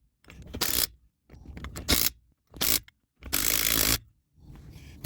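Lug nuts being run down and tightened onto a wheel's studs: five short bursts of metallic scraping and rasping, each about half a second to a second long and each ending abruptly.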